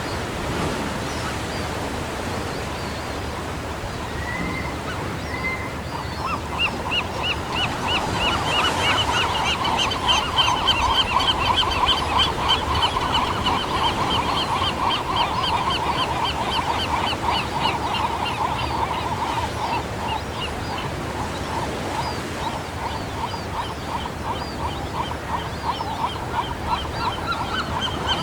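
Pelican chick calling: a rapid run of short, repeated squawks that starts about six seconds in, grows louder, fades after about twenty seconds and picks up again near the end, over a steady rushing background.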